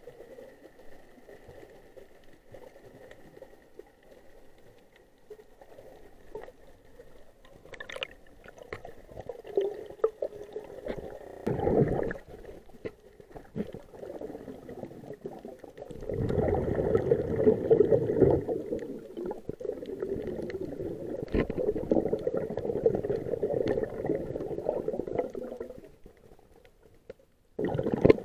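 Muffled underwater noise picked up by a camera in a waterproof housing: water gurgling and sloshing, swelling in louder stretches in the second half, with a few short clicks.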